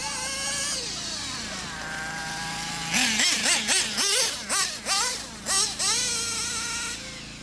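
Werks B5 nitro glow engine in an RC buggy, running during its break-in and revving up and down with a high whine as the buggy drives figure eights. In the middle it gives a run of quick throttle blips, and near the end it fades as the buggy moves off.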